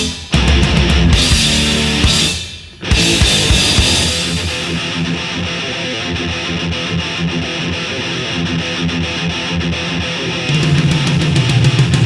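Heavy metal music with guitar, cutting out briefly twice in the first three seconds and growing heavier near the end.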